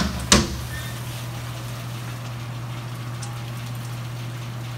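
Two sharp metallic clanks a third of a second apart as the latch on a cabinet parts-washer door is knocked open, then a steady low hum for the rest.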